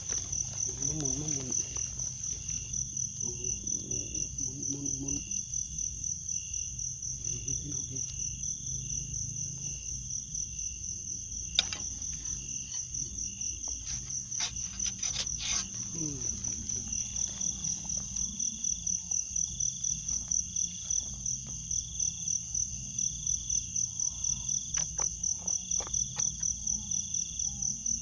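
Crickets chirping in a steady high-pitched chorus that pulses about three times a second. A few sharp clicks come through in the middle.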